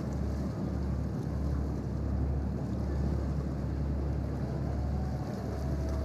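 Steady low rumble of ship engines carrying across the harbour, with wind buffeting the microphone.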